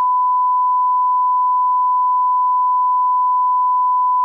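Steady 1 kHz reference test tone, the line-up tone that runs with colour bars, held at one unbroken pitch and level.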